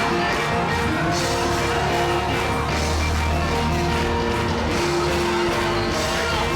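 Live gospel band music in a church, playing loud and steady, with deep held low notes under it.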